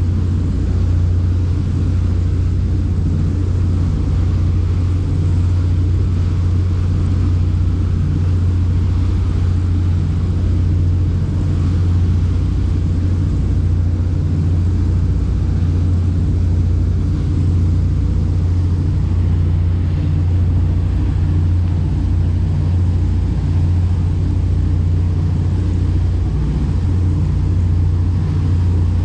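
Boat engine running steadily: a deep, even hum that holds at one level throughout, heard on board.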